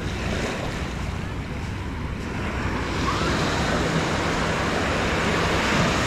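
Small sea waves breaking and washing up the sand at the water's edge, with wind on the microphone. The wash swells louder about halfway through.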